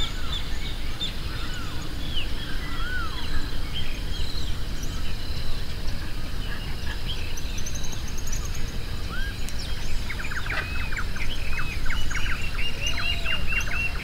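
Small songbirds chirping over a steady outdoor background hum. From about ten seconds in, one bird repeats a quick series of short arched notes, about three a second.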